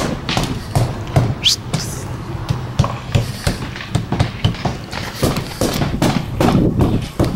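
Irregular knocks, taps and thumps of siding work on a house wall, with one short rising squeak about a second and a half in.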